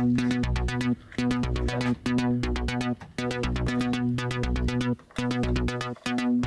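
Background electronic music with synthesizer chords and a steady beat that drops out briefly about once a second.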